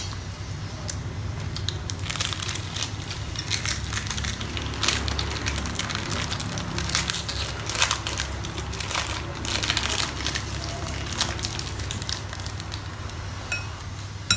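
Close-up eating sounds at a table: irregular crunching and crinkling, densest from about two seconds in until near the end, as food is chewed and a foil-wrapped chocolate is unwrapped.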